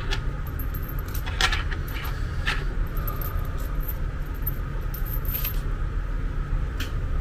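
Small metal bolts clinking as they are handled, a few scattered sharp metallic ticks over a steady low background hum.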